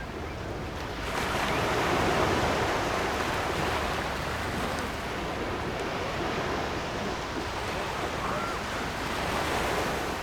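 Surf washing onto a public beach, a wave swelling about a second in, with wind and faint voices of beachgoers in the background.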